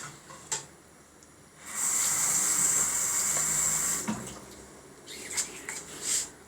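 Kitchen tap running for about two seconds, switched on and off abruptly, with a few short knocks before and after.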